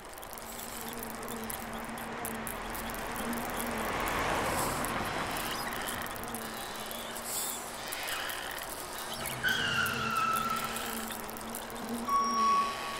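Sound effects for a cartoon scene. A low steady buzz runs through most of it over a noisy background. A squeal falls in pitch about ten seconds in, and a high beep starts and stops repeatedly near the end.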